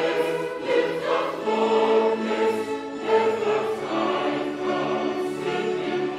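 A choir singing a hymn in several parts, holding long notes together.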